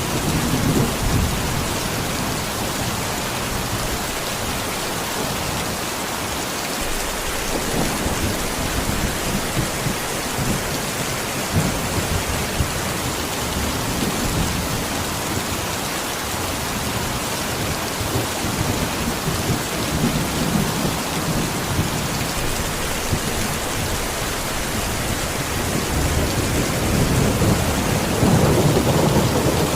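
Steady, heavy rain, with low rumbles swelling up every several seconds; the strongest rumble comes near the end.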